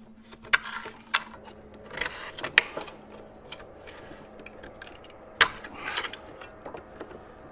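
Short copper tube and steel wire handled against a lawn mower's metal housing as the wire that tensions the rear-wheel-drive belt is wound up: scattered clicks, taps and scraping, the sharpest click about five and a half seconds in.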